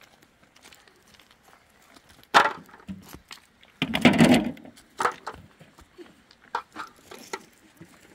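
Stones knocking and clattering against each other as rocks are picked up and dropped on stony ground: a sharp knock about two seconds in, a longer clatter around four seconds, then a few lighter clicks.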